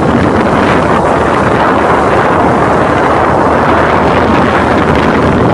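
Mercury 9.9 outboard driving an inflatable boat along at speed, its steady engine note mostly buried under loud, constant wind buffeting on the microphone and rushing water.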